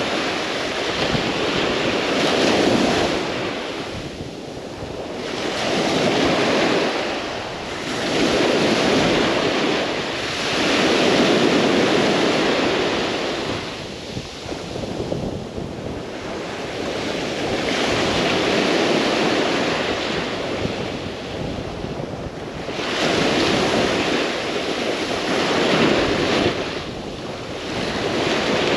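Ocean surf breaking on a beach, a wash of noise swelling and fading every few seconds as the waves come in, with wind on the microphone.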